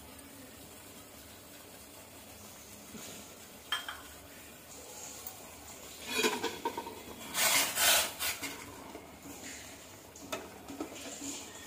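Steel spoon clattering and scraping against a stainless-steel pot of vermicelli boiling in water as it is stirred. The clatter is loudest a little past halfway, with lighter clinks near the end.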